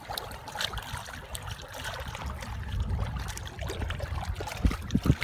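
Hands scooping and pressing wet mud and sand in shallow river water, with small splashes and squelches over a steady low rumble. A few heavier thumps come near the end.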